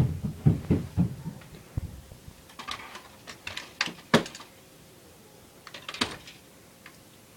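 Knocks and sharp clicks of rifles being handled and set down: a run of dull knocks at the start, then a few scattered clicks, with a sharp click about four seconds in and another about six seconds in.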